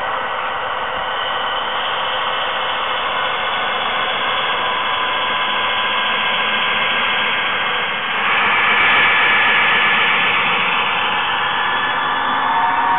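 HO-scale model diesel locomotives running with DCC sound decoders: a steady, tinny diesel engine sound from their small onboard speakers, mixed with motor and wheel noise, getting louder about eight seconds in.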